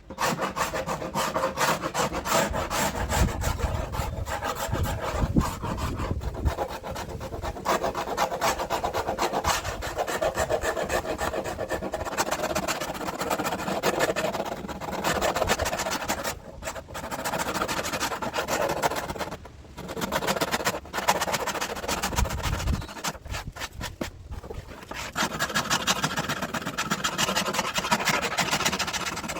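Scissors blades scraping and cutting away the peeling surface of a car seat back panel: a fast, continuous rasping made of many quick strokes, with a few short pauses.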